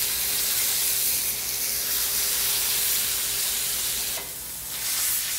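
Beef tenderloin searing in safflower oil in a very hot cast-iron skillet: a steady sizzle that eases briefly about four seconds in.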